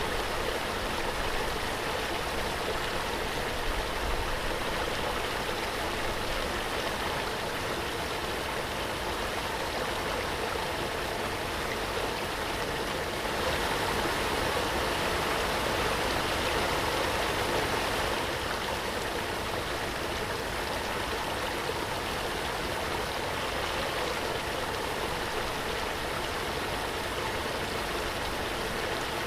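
Waterfall: a steady rush of falling water, swelling slightly for a few seconds mid-way.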